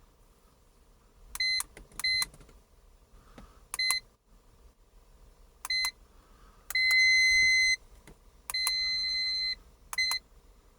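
iCarsoft LR V2.0 handheld diagnostic scanner beeping as its buttons are pressed: five short high beeps spread out, and two longer beeps of about a second each in the second half.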